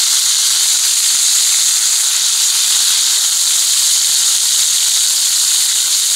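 Wild hog bacon frying in hot Crisco shortening in a skillet: a steady, even sizzle.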